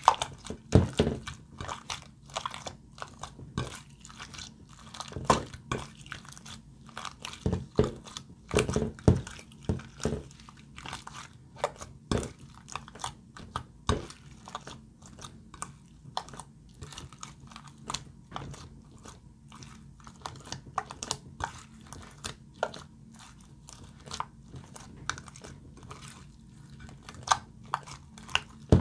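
Glossy slime being kneaded and squished by hand, making irregular wet pops and clicks.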